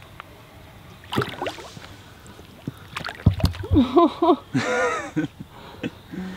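Water splashing and swirling as a big snapping turtle is let go and pushes off into the shallows, with a few sharp knocks around the middle. Short, wordless human exclamations rise over it a little past halfway and are the loudest sound.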